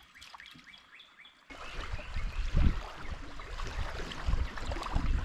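Faint bird chirps over quiet, then an abrupt change about one and a half seconds in to a steady rush of river water and wind around a kayak, with low thumps of wind buffeting the microphone.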